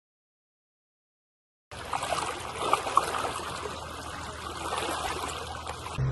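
Silence for the first second and a half, then water trickling and splashing, with many small crackles.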